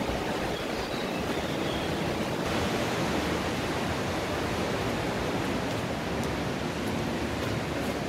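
Steady rush of running stream water, an even hiss with a low rumble underneath.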